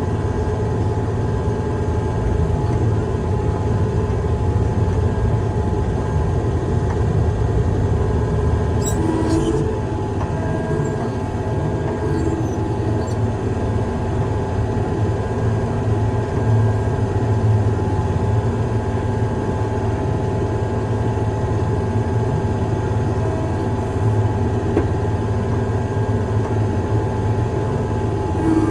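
Heavy diesel construction machine running steadily, a low engine rumble with a steady whine over it, and a brief faint clatter about a third of the way through.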